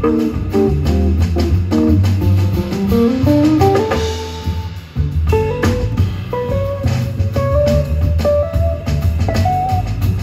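Live jazz guitar trio playing: guitar running quick single-note melodic lines over plucked upright bass and a drum kit with cymbals. A fast rising run about three to four seconds in is followed by a brief drop in level, then the line picks up again.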